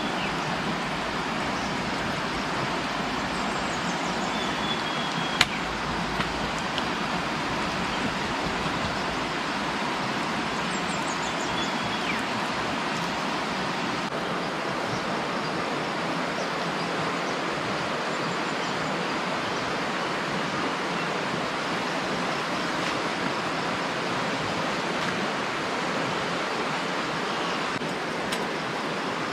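Shallow river running steadily over rocks, a constant hiss of rushing water, with a single sharp click about five seconds in.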